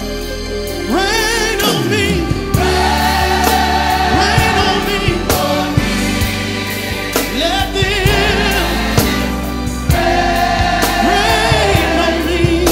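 Gospel praise song: a choir sings long held phrases over a band with a steady bass. Each phrase slides up into a held note with vibrato, about every three seconds.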